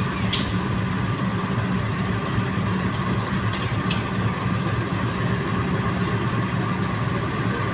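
Diesel locomotive engine running steadily with a deep hum, with a few short hisses about half a second, three and a half, and four seconds in.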